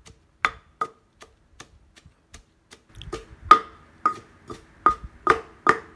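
Kitchen knife cutting curry-paste ingredients into small pieces by hand: a run of sharp clicks, each with a short ring, sparse and faint at first, then louder and steady at about two or three a second from about halfway.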